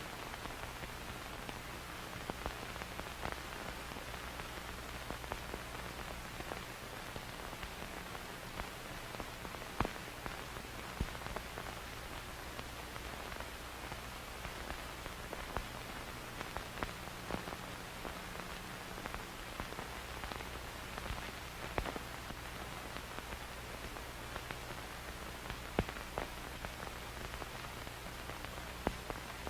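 Old film soundtrack crackle: steady hiss with a low hum underneath, broken by irregular sharp pops and clicks from dust and scratches on the film.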